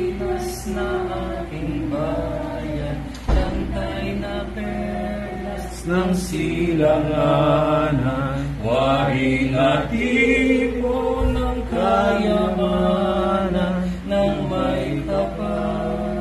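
Voices singing a slow song together, holding long notes, over a steady low hum.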